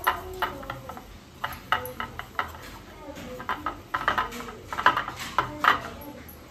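Aluminium idli plate knocking and clattering on a stone counter as it is rubbed with oil by hand: irregular light metallic clicks and taps, with a cluster of louder knocks a little after the middle.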